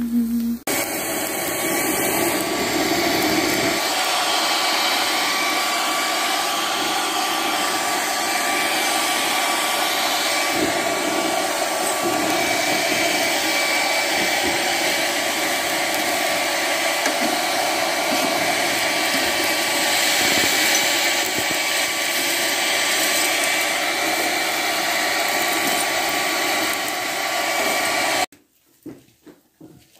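Small handheld electric hair dryer running steadily, blowing air onto burning charcoal in a barbecue grill to fan the coals. It switches on about a second in and cuts off suddenly shortly before the end.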